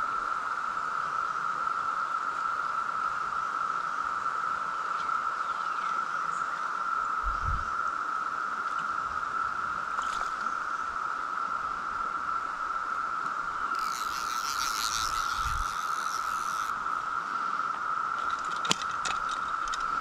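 A Brood X periodical cicada chorus: a steady, unbroken high drone. About fourteen seconds in, a brief rush of hiss lies over it for two or three seconds.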